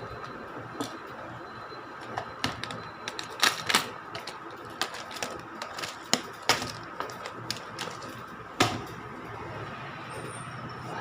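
Irregular light clicks and taps of small tools and parts being handled on a repair bench, with a few sharper knocks, over a steady background hum.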